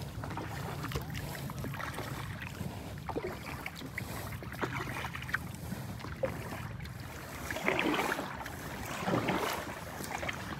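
Kayak paddle dipping and splashing, with water lapping at the hull; the splashing is louder for a couple of seconds near the end.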